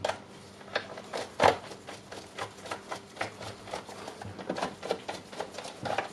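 Irregular small clicks and taps of plastic housing parts as the rear cover of a DeWalt cordless nail gun is fitted and pressed into place by hand, with one sharper knock about a second and a half in.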